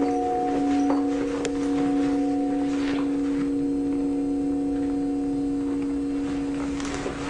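Crystal singing bowl ringing with a sustained, steady tone and a few higher overtones, fading only slightly near the end.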